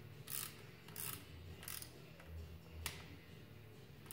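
Ratchet wrench clicking in short strokes as a nut on the engine is tightened: three strokes about two-thirds of a second apart, then a single sharper click near the end.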